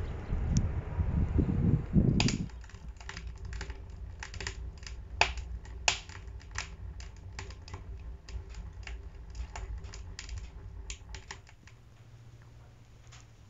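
Wood fire crackling in a wood stove: sharp, irregular pops and snaps, several a second, starting about two seconds in after a short stretch of low rumbling noise, and thinning out and going quieter near the end.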